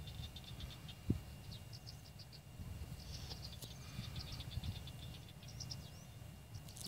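Outdoor wetland ambience: many short, high chirping calls in quick series from small wetland animals, over a low rumble, with one soft knock about a second in.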